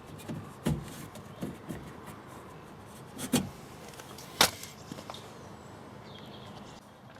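A few sharp clicks and light knocks of hands working parts into a car door, the loudest two a second apart a little past the middle.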